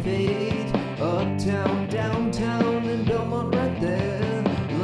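Upbeat country-rock song: a man singing over strummed acoustic guitar.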